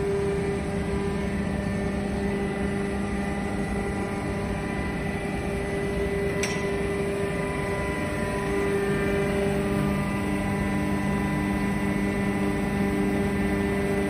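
Hydraulic baler's power pack running, its electric motor and hydraulic pump giving a steady hum with a low whine, slightly louder from about halfway through. A single sharp click about halfway through.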